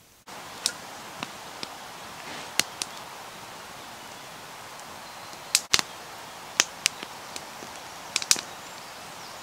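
Oak-wood fire crackling, with irregular sharp pops and snaps over a steady hiss, while hot water is poured from a kettle into a cast-iron teapot.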